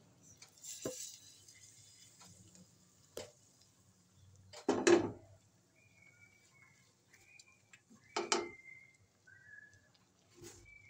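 Metal utensils knocking and clanking against an aluminium cooking pot as fried masala tadka is emptied from a pan into cooked black gram dal: a few separate knocks, the loudest about five seconds in, with a brief hiss about a second in. Faint short high whistling tones come in during the second half.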